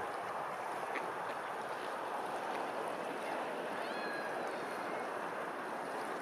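Steady rushing of water, with a few faint short bird chirps about four seconds in.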